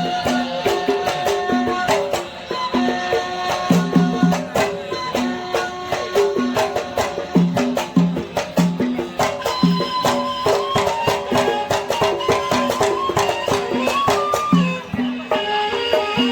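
Live Hadhrami sawt music by a traditional band: a quick melody on string instruments over a steady pattern of hand-drum strokes.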